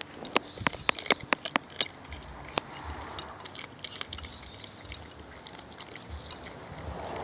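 Cane corso puppy chewing raw chicken on the bone: a quick run of sharp cracks and crunches in the first couple of seconds, then softer chewing.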